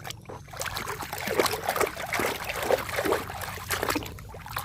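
Water sloshing and dribbling as a toy is washed by hand in a tub of water, with irregular splashes and small knocks of the toy against the container.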